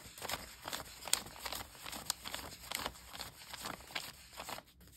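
Paper banknotes (Polish 100-złoty notes) being counted by hand, a quick run of crisp paper flicks and rustles about three a second that stops shortly before the end.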